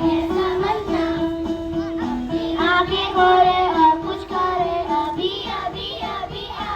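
Young children singing a song together over a musical accompaniment with a steady held bass note.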